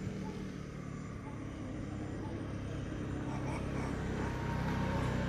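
A motor engine running with a low, steady hum that slowly grows louder.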